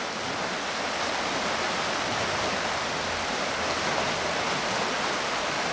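Creek running high: a steady rush of fast-flowing water.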